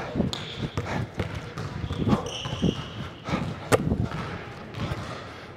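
A basketball bouncing on a hardwood gym floor, with scattered thuds from footsteps, and a short high squeak about two seconds in.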